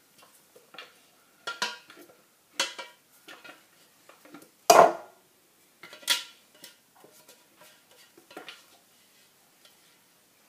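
Kitchen utensil clinking and scraping against the stainless-steel Thermomix TM31 mixing bowl as it is scraped out: a string of separate clinks and knocks, one louder knock about halfway through.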